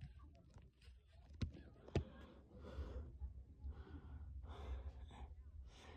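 Faint, muffled fireworks heard from inside a car: two sharp bangs about a second and a half and two seconds in. Soft breathing close to the microphone follows.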